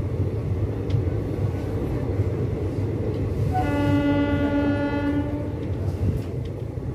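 A train running with a steady low rumble, and a train horn sounding once, a single held tone for about two seconds a little past halfway through.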